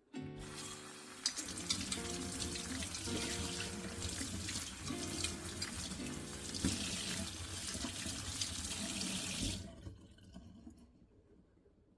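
Water running from a tap into a sink, turned off near the end.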